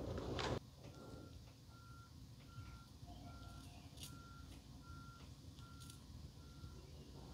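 Faint electronic beeping: short, identical single beeps about every 0.7 seconds, in a steady series. A louder noise with a low hum cuts off abruptly about half a second in, before the beeping starts.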